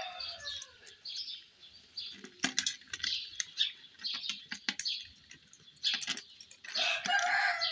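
A cat chewing food, with irregular sharp crunches. Bird calls sound over it, a louder burst of calling near the end.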